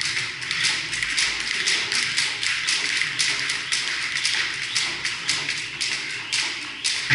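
A rapid, irregular run of sharp taps and clicks, several a second, over steady background noise.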